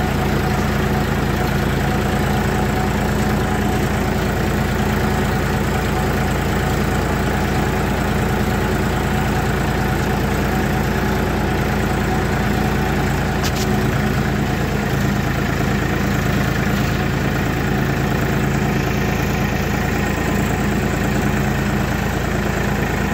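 Diesel tractor engine running steadily at an even speed.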